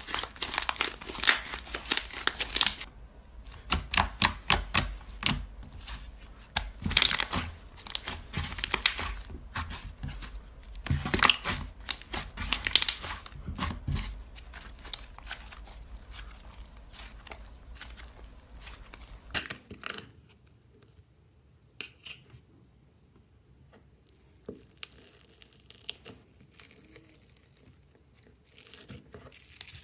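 Slime being squeezed and pressed by hand, giving dense runs of crackling, popping clicks for roughly the first fourteen seconds. After about twenty seconds the background hum drops away and only faint, sparse pops remain.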